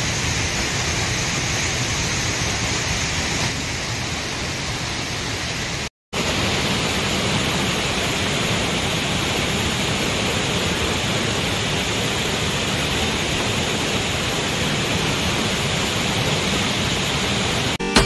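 Steady rushing of a waterfall, an even noisy hiss of falling water. It cuts out for a moment about six seconds in, then carries on.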